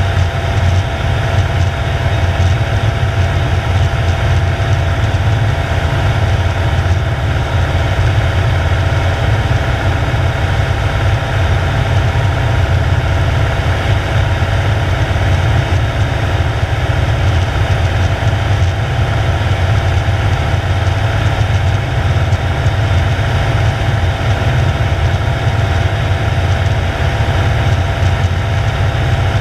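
Single-engine light aircraft's engine and propeller droning steadily, heard inside the cockpit: a deep, even throb with a few steady higher tones above it.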